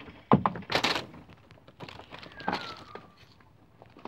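Knocks and thunks from a fishing rod and spinning reel being handled on a boat, the loudest about a third of a second in, followed by a brief noisy rush. A thin whistle falls in pitch about halfway through.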